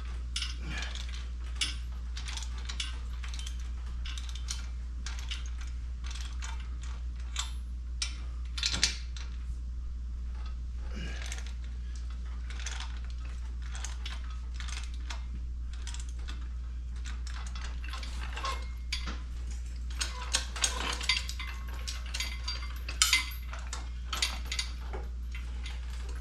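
Hand tools working the bolts on the steel legs of a hydraulic transmission jack: scattered metallic clicks, clinks and ratchet-like ticking as the legs are loosened and shifted to take out a wobble, busier near the end. A steady low hum runs underneath.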